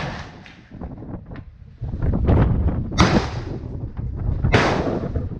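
Two rifle shots, about three seconds in and a second and a half later, each followed by a ringing tail, over wind buffeting the microphone.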